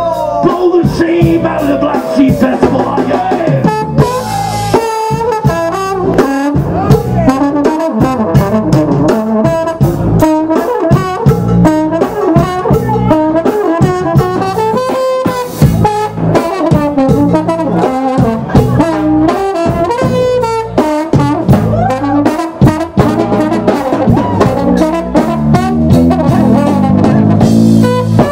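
Live band playing jazz-punk: a trombone leads with a gliding melodic line over electric bass and a driving drum kit with percussion.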